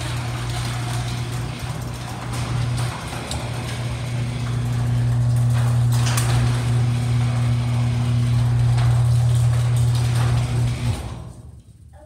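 LiftMaster garage door opener running as the sectional door opens, a steady low hum over the noise of the door moving along its tracks. A second, higher hum joins about four seconds in, and the opener stops near the end.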